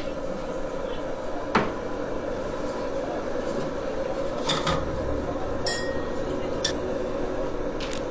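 Crockery and cutlery clinking and knocking while a cup of coffee is made, with a handful of separate clinks. A steady hum runs underneath throughout.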